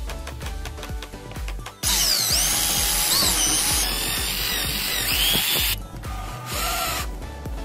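Electric drill boring into the metal of an axe head, running loud for about four seconds with a high, wavering squeal from the bit, then stopping. Background music with a steady beat plays underneath.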